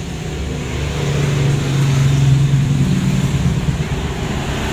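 A motor vehicle's engine passing by, a low hum growing louder to a peak a little past halfway through, then easing off slightly.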